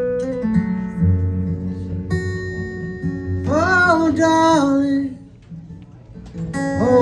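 Live country song intro on guitar, with a voice singing a short wordless phrase about halfway through. The music drops away briefly, then the guitar comes back in near the end.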